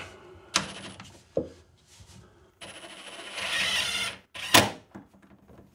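Cordless drill driving a screw into wood: a short burst about half a second in, then a longer run of about a second and a half with a thin high motor whine, ending in a sharp knock.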